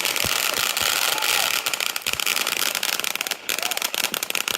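Fireworks crackling: a dense, continuous stream of rapid pops and crackles, with a few louder bangs among them.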